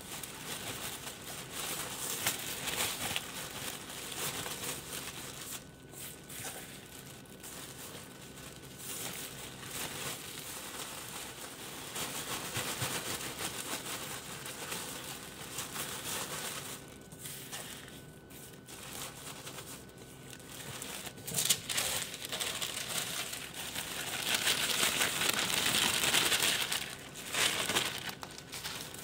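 Clear plastic bag crinkling and rustling as gloved hands work crumbled mushroom spawn into torn cardboard pieces inside it, in handfuls with short pauses. It grows louder near the end as the bag is bunched up.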